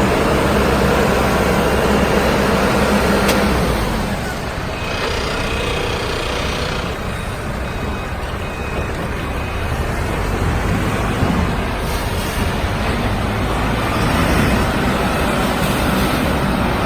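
Self-loading concrete mixer's diesel engine running steadily, easing slightly in level about four seconds in.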